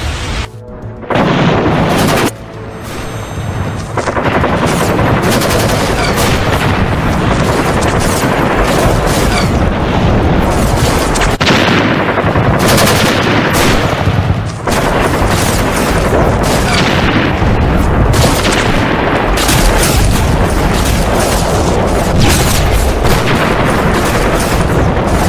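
Battle sound effects of dense rifle and machine-gun fire mixed with booms, nearly unbroken from about four seconds in.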